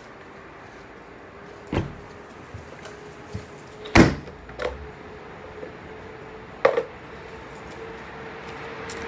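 Four scattered knocks and thumps, the loudest about four seconds in, over a faint steady hum.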